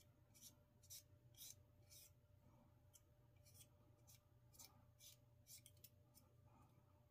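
Faint, short scratching strokes, about two a second, as 5-minute epoxy is smeared onto the end of a fishing rod tip, over a low steady hum.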